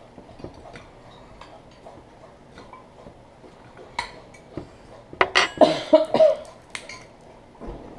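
Forks clinking and scraping on ceramic dinner plates in scattered light clicks. A denser, louder burst of noise comes about five seconds in and lasts a little over a second.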